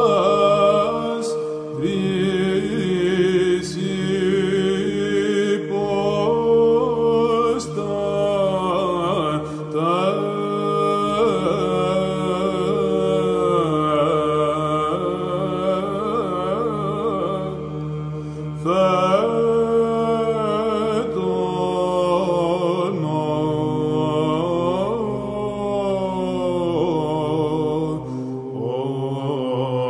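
Byzantine chant in the fourth mode, legetos: a male chanter sings a slow, winding melody over a steady held drone (the ison).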